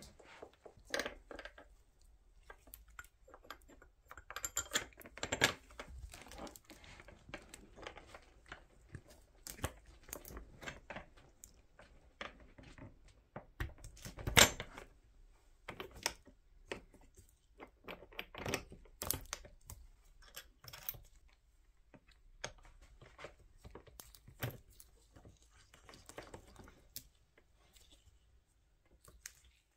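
Wicker pram hood being fitted and fastened by hand: rustling and creaking of the wicker with scattered clicks and knocks of the metal hinge fittings and screws, the sharpest knock about halfway through.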